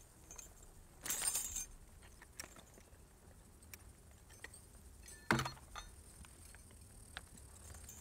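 A draught horse's harness being adjusted: metal fittings and trace chains jingle briefly about a second in, with small clinks scattered through, and a single sharp knock a little past halfway.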